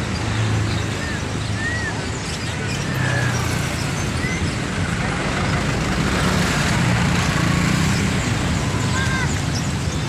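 Street traffic, with trucks and motorbikes passing, making a steady engine hum and road noise. Short bird chirps from caged birds sound every so often over it.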